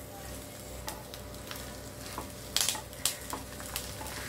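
Oil sizzling under a banana-leaf-wrapped fish parcel frying in a shallow pan, with a few sharp knocks and scrapes as the parcel is turned over and pressed with a wooden spatula, the loudest about two and a half and three seconds in.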